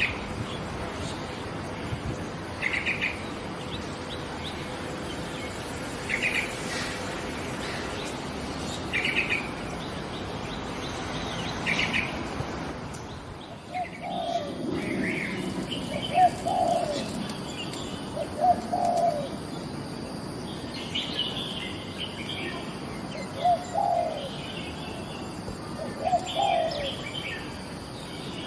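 Wild birds calling. For the first half a short high call repeats about every three seconds; about halfway through the sound changes to a lower call repeated every two to three seconds, with other birds chirping higher above it.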